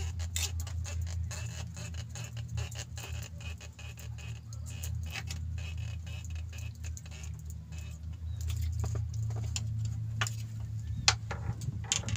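Scattered small clicks and knocks of fishing gear being handled on a bamboo raft, with one louder knock near the end, over a steady low hum.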